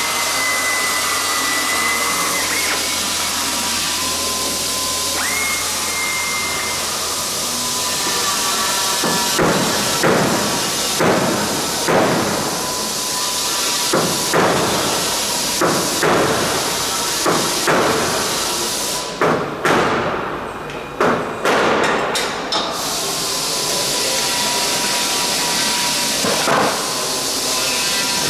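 Repeated hammer blows on metal, about one a second for some twelve seconds near the middle, as rivets are knocked out of aircraft skin. Under them runs a steady hiss with a high whine that shifts pitch.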